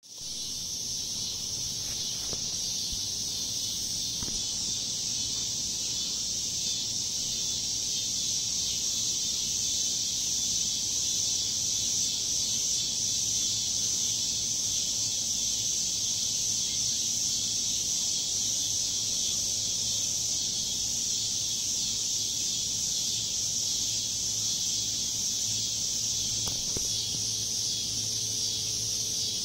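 Steady, high-pitched chorus of insects droning without a break. A faint low rumble sits underneath and grows slightly louder near the end.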